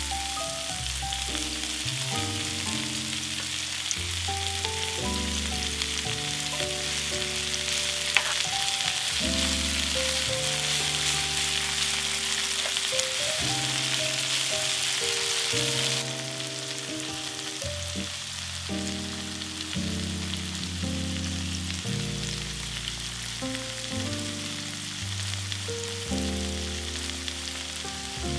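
Food frying in oil in a pan: a steady sizzle that drops in level about two-thirds of the way through, with one sharp click about eight seconds in. Background music plays under it.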